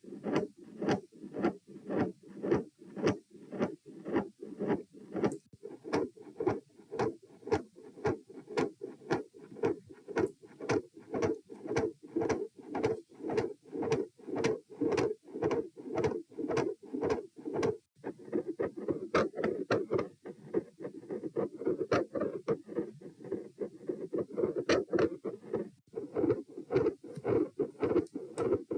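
Human heart sounds recorded at the chest: a steady run of regular, evenly spaced beats with a whooshing murmur between them. After a brief dropout about two-thirds of the way through, the murmur grows denser and more continuous and fills the gaps between beats.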